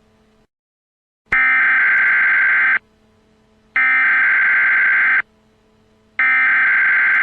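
Three loud bursts of Emergency Alert System (SAME) header data tones, each a harsh digital buzz about a second and a half long, separated by about a second.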